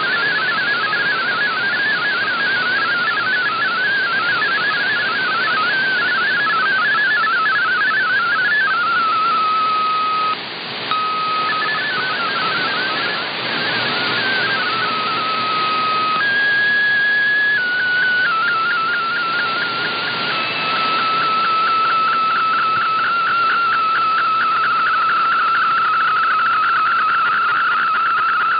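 MFSK32 digital-mode signal received on a shortwave radio over static hiss. At first it is a rapidly warbling run of tones. About 8 s in it gives way to steady held tones with brief gaps. From about 18 s it settles into one steady tone with rapid, regular pulses as the picture transmission starts.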